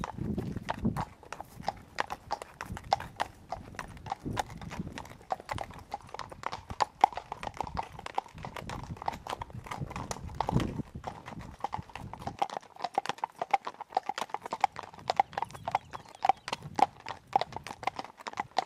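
Horse hooves clip-clopping in a quick, steady run of sharp strikes, heard from the saddle. A low rumble underneath stops about twelve seconds in.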